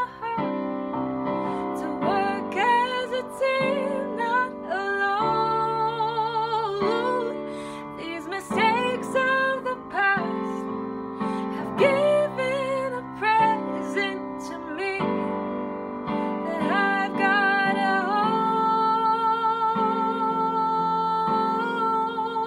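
A woman singing a slow ballad, accompanying herself on piano with sustained chords, her held notes wavering with vibrato.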